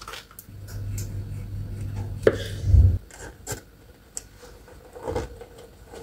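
Rubbing and scraping with light clicks as mandarin pulp is pressed through a mesh sieve into a plastic measuring jug to squeeze out the juice. Over the first half there is a low hum and a loud thump just before the middle.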